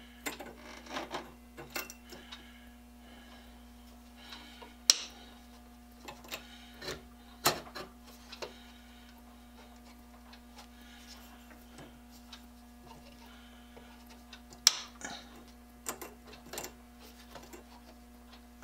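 Handling noise of a Dremel rotary tool being fitted and adjusted in a wooden sharpening jig: scattered light clicks and knocks, with two sharper knocks about five seconds in and near fifteen seconds in, over a faint steady hum.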